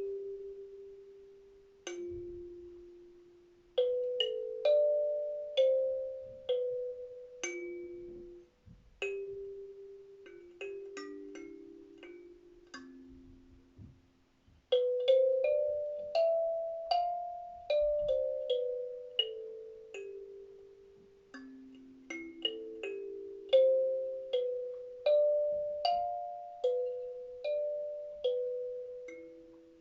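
Kalimba (thumb piano) played slowly. Single plucked metal tines ring out and fade one after another in a gentle, wandering melody, often stepping downward in short runs.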